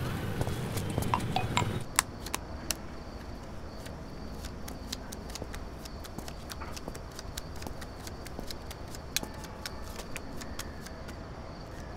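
Playing cards being dealt and slapped down during a card game: a run of light, sharp, irregular clicks over a faint steady high hum. The first two seconds hold louder street noise.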